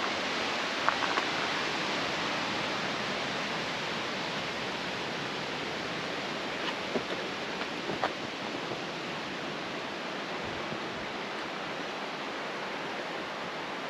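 Steady, even rushing outdoor noise, with a few faint clicks about a second in and again around seven and eight seconds.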